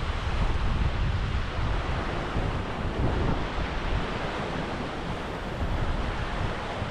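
Wind buffeting a GoPro Hero 12's microphones: a steady, loud low rumble with a hiss spread above it.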